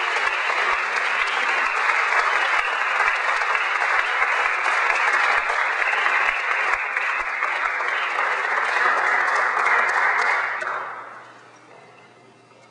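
Audience applauding steadily, then dying away about eleven seconds in.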